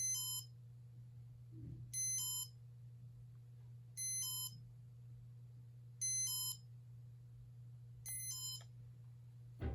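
Casablanca Comfort Touch ceiling fan control beeping: five short electronic beeps of several pitches, one about every two seconds, as test mode steps the fan up through its speeds. Under them is a steady low hum from the fan running.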